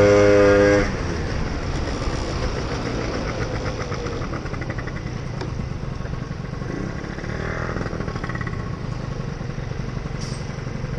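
Gilera Runner SP scooter engine running at high revs with a strong, high-pitched buzz, then dropping off sharply about a second in as the throttle is closed. After that the scooter coasts and runs at low throttle under steady wind and road rumble, with a brief high squeak near the end.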